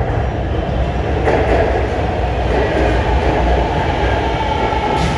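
Lahore Orange Line metro train pulling into an elevated station: a steady rumble of wheels on rail with a faint whine and a couple of clacks.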